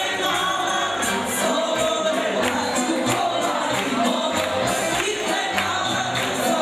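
Live Serbian folk wedding band playing with a steady beat while a woman sings into a microphone and guests sing along.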